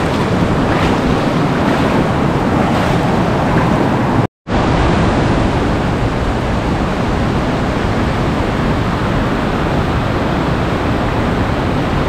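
Loud, steady rush of flowing stream water near a waterfall, broken by a brief cut to silence about four seconds in.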